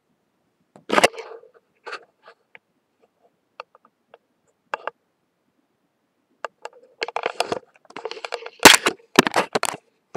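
Handling noise from a phone or camera being picked up and moved: a sharp knock about a second in and a few scattered clicks, then several seconds of close rustling and knocking near the end.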